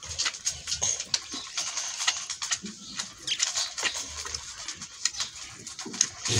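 Calf suckling at a goat's udder: irregular wet sucking clicks and smacks.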